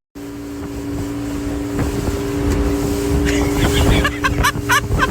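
Motorboat engine running with a steady hum, with wind rumbling on the microphone. Short high-pitched rising-and-falling sounds join in during the last second and a half.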